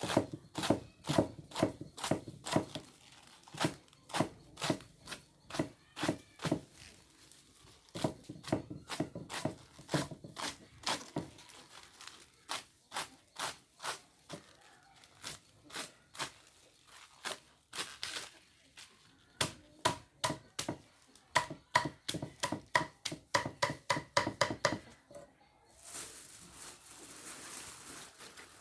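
Rapid chopping with a blade on a wooden surface, several strikes a second in runs broken by short pauses. A few seconds before the end the chopping gives way to rustling and crinkling.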